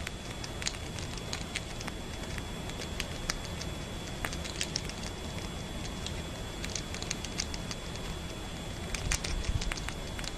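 Squirrel chewing a piece of fruit: small, irregular crunchy clicks, coming thicker near the end, over a steady low hum.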